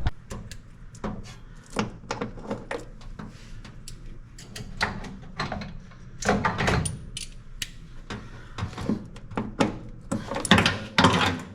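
Tools and metal parts being handled while working on a truck: a string of clicks, taps and knocks, with a louder clatter near the end, likely a dropped part.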